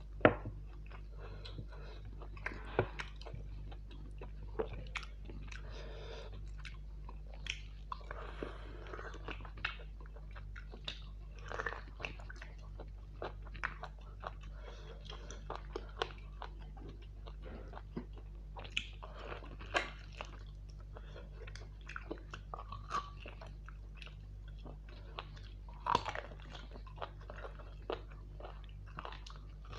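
A person chewing and biting mouthfuls of mutton curry and rice close to the microphone, with irregular wet smacks and crunches throughout, over a steady low hum.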